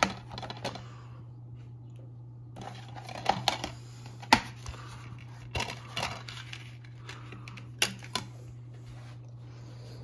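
Plastic DVD case being handled and opened and the disc unclipped from its centre hub: a string of separate clicks and snaps, the sharpest about four seconds in, over a steady low hum.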